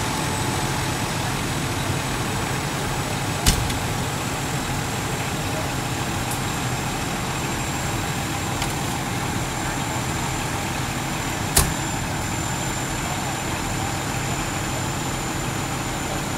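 Fire engines idling nearby, a steady low engine drone. Two sharp knocks cut through it, one a few seconds in and another about eight seconds later.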